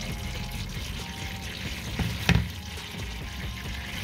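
Automatic transmission fluid draining from the loosened edge of a transmission oil pan into a drain pan, a steady pouring and dripping, with one sharp knock about two seconds in.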